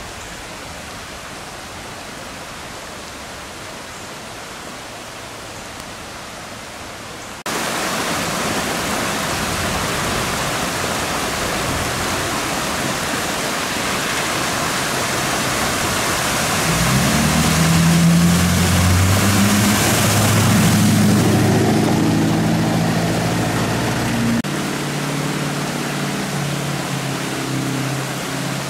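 Flash-flood water rushing across a road and pouring off its edge, with rain; the rush jumps suddenly louder after several seconds. Over the second half a pickup truck's engine grows louder as it drives along the flooded road, and a lower engine hum carries on near the end.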